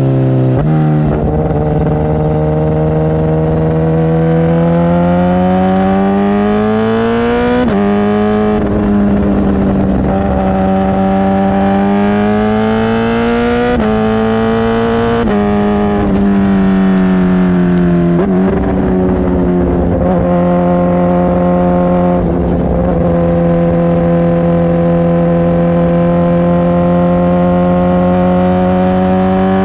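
Kawasaki ZX10R inline-four running through a Brocks titanium CT megaphone exhaust while riding. The engine pitch climbs and drops sharply at each upshift, falls back as the revs come down, then holds at a steady cruise.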